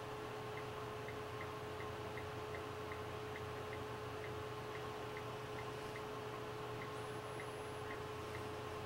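Small, faint key clicks from an iPod touch's on-screen keyboard, one tick for each letter typed, about two a second at an uneven pace, over a steady low electrical hum.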